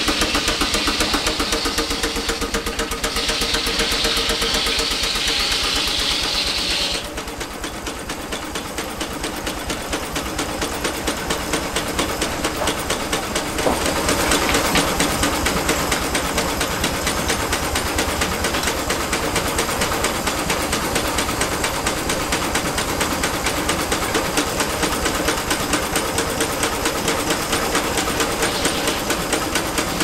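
Belt-driven circular sawmill running: the driving engine keeps up a steady, rapid rhythmic beat through the flat belt. A high hiss sits over it for about the first seven seconds and stops abruptly, and the sound grows louder again about halfway through.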